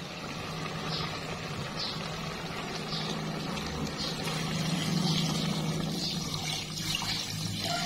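Water poured in a stream into a rice cooker's metal inner pot of chicken pieces, splashing as it fills, louder from about halfway through, over a steady low hum.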